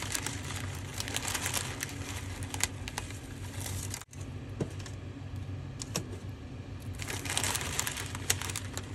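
Noodles frying in a hot pan: a steady sizzle with many small crackling pops, broken off briefly about four seconds in.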